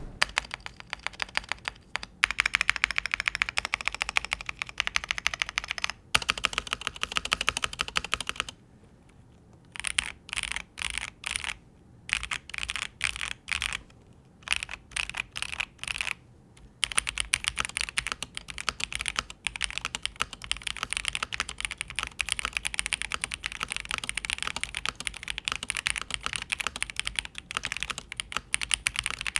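Typing on a Melgeek Modern 97 gasket-mount mechanical keyboard with Kailh Sonic 53 switches: a fast, steady run of high-pitched, poppy keystrokes. In the middle the typing breaks into short separate bursts of keypresses with brief pauses between them, before running on steadily again.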